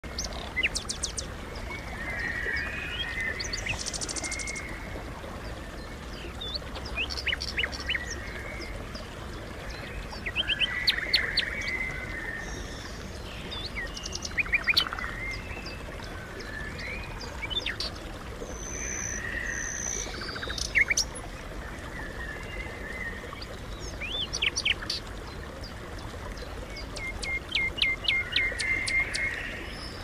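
Wild birds chirping and singing, several calls overlapping, with a rapid run of repeated notes near the end. Steady flowing water runs underneath.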